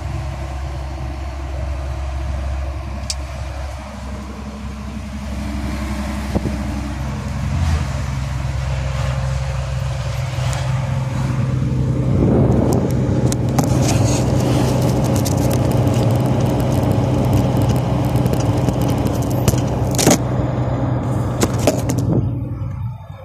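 Iveco semi-trailer truck's diesel engine running while driving, heard from inside the cab as a steady low hum that grows louder about halfway through. Sharp clicks and rattles from the cab come in the second half, and the sound cuts off just before the end.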